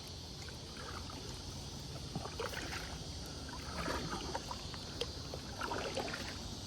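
Kayak paddle strokes in river water: soft splashes and drips as the blades dip and lift, roughly every second or two, with a few faint knocks.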